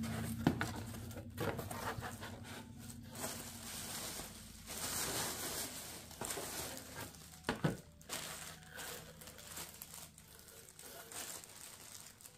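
Scissors snipping through the packing tape of a cardboard shipping box, with a few sharp clicks near the start, then plastic air-pillow packing and a plastic bag crinkling and rustling as the box is unpacked.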